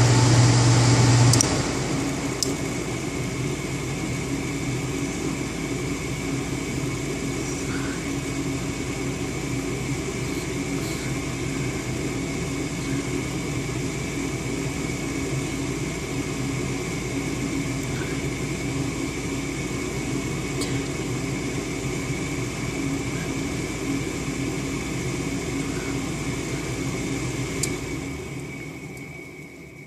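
Goodman furnace running. A loud low hum cuts off about a second and a half in, leaving a steady motor whir with a faint constant whine, which dies away near the end.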